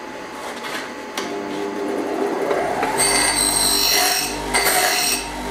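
Bench grinder running, with small steel brackets pressed against the wheel in two spells of grinding, from about three seconds in and again near the end.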